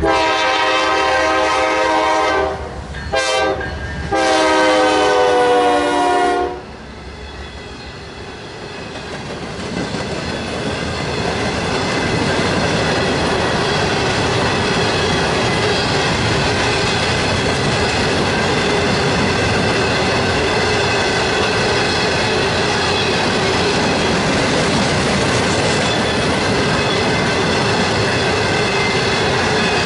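A train's multi-note air horn sounds a long blast, a brief one, then another long blast. The train then rolls past, its wheels clattering over the rail joints, the noise swelling for a few seconds and then holding steady.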